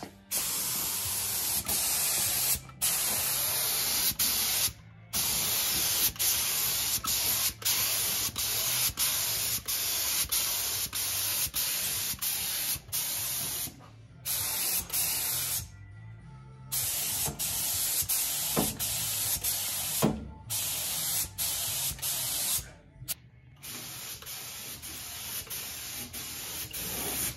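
Compressed-air paint spray gun hissing as it sprays primer. It runs in long passes with several short breaks where the trigger is let go.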